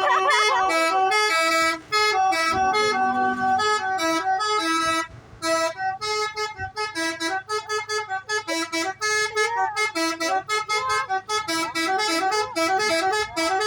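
Bus 'telolet' multi-tone air horn playing a fast melody of short notes that step up and down, with a brief break about five seconds in.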